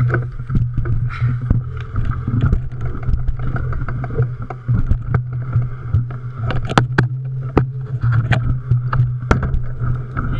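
Mountain bike riding over rough, rocky trail: a steady low rumble with frequent sharp knocks and rattles from the bike.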